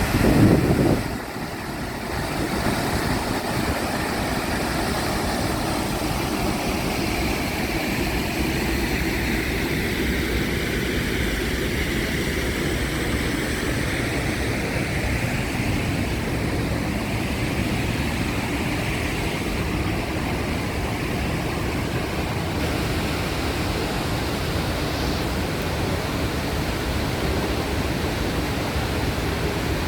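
Waterfall, steady rushing water with no break, after a brief loud low rumble in the first second.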